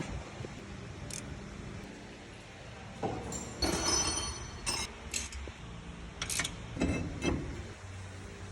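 Metal objects clinking and jangling: a busy cluster of short clinks about three and a half seconds in, then a few single clinks over the next three seconds.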